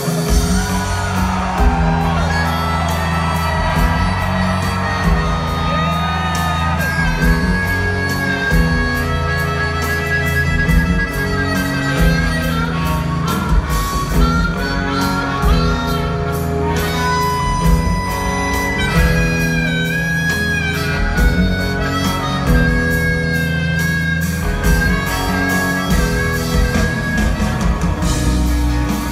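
Live rock band, heard from among the audience, playing a harmonica solo of long held and bending notes over electric guitar, bass and a steady drum beat.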